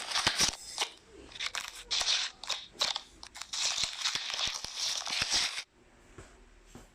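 Irregular crunching and crackling in dense bursts with many sharp clicks, which cut off suddenly about five and a half seconds in.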